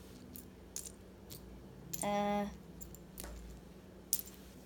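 Faint scattered clicks and rustles of loose plastic Lego pieces and a paper instruction sheet being handled. A short, steady-pitched vocal sound about two seconds in.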